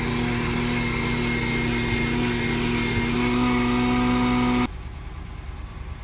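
RoadPro 12-volt wet/dry canister vacuum running, a steady motor whine over a rush of air as its nozzle works over a carpet floor mat. It stops abruptly near the end.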